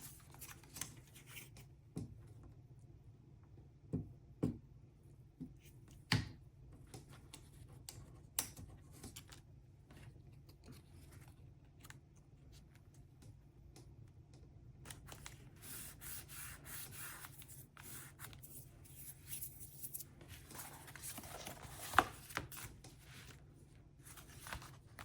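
Cardstock and paper pieces being handled and placed in a paper folio: soft rustling and rubbing with scattered light taps, the sharpest one near the end.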